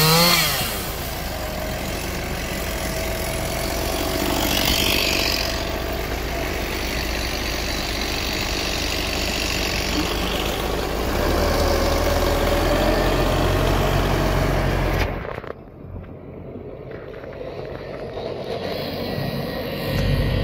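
Kubota tractor's diesel engine running steadily under load as its loader grapple lifts and carries a large log, with a chainsaw revving briefly at the very start. About three quarters of the way through, the sound drops suddenly to a lower level, then swells again near the end.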